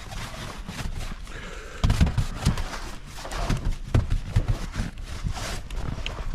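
Snow being cleared: a shovel scraping and scooping through fluffy snow in irregular strokes, with crunching and thudding that grows louder about two seconds in.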